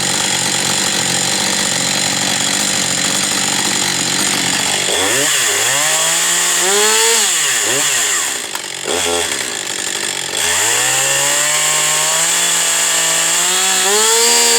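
Husqvarna 550 XP two-stroke chainsaw engine idling steadily for about four seconds, then revved up and down in several quick throttle blips. The pitch dips briefly near the middle, then climbs and holds high for a few seconds before dropping away near the end.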